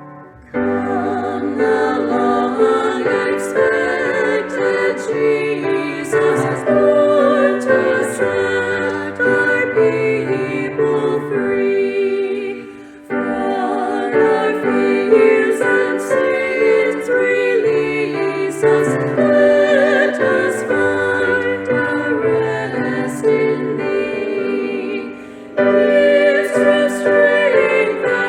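Women's vocal trio singing a sacred Christmas song in harmony with piano accompaniment, in three sung phrases separated by short breaths.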